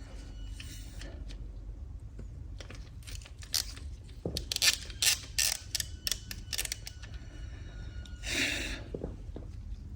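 Metal hand tools clicking and clinking on the engine while a cam belt tensioner is being worked loose: a run of irregular sharp clicks, then a short scraping rasp near the end.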